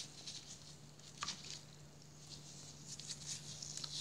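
Hand stirring water in a clear plastic bowl with dissolving bath bombs: faint scattered splashes and light clicks, over a faint steady low hum.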